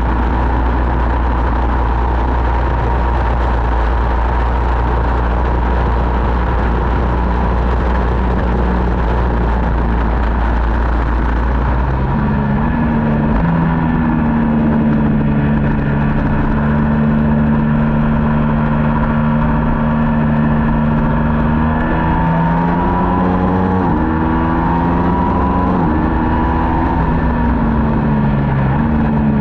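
Middleweight superbike racing motorcycle engine running loud and steady, then climbing in pitch and dropping back sharply twice in the second half, as it is revved up through gear changes.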